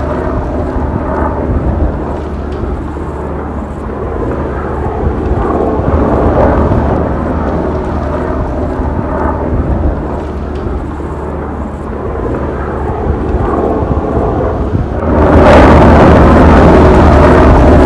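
UH-60 Black Hawk helicopter running close by, with a steady low rotor rumble. About fifteen seconds in, the rotor wash and blown dust hit the microphone and the sound turns into loud wind buffeting.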